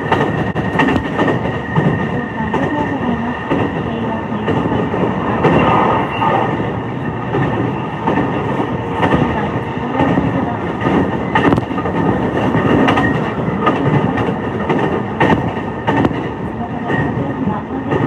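Running noise heard inside the cabin of a JR East E233-5000 series electric train travelling at speed: a steady rumble of wheels on rail, with a steady high tone on top and scattered sharp clicks.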